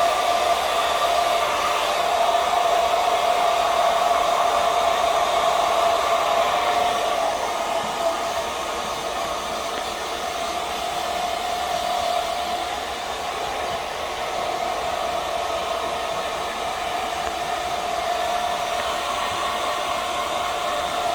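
Hair dryer running steadily: a rushing blow with a constant whine. It gets a little quieter about seven or eight seconds in.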